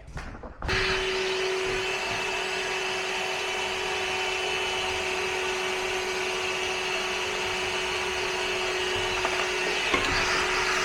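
Vacuum cleaner switched on about a second in and running steadily, a constant rushing noise with a steady hum, sucking coffee-grounds buildup out of the opened grinder.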